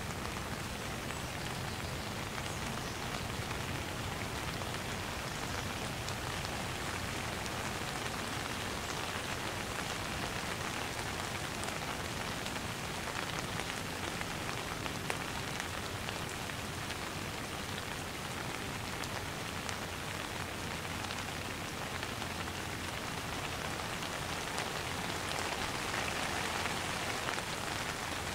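Steady light rain: a dense, even patter of raindrops, with now and then a single drop standing out as a faint click.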